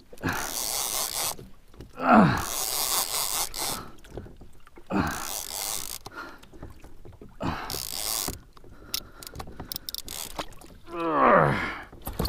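A two-speed conventional fishing reel cranked in repeated bursts every two to three seconds as a fish is pumped and wound up from the depths. Several strokes carry a short falling moan, the loudest near the end.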